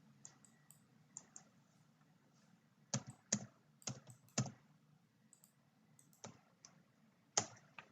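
Computer keyboard keys tapped at an irregular pace while a web address is typed. The clicks are faint, with a few louder key strikes about three to four and a half seconds in and one more near the end.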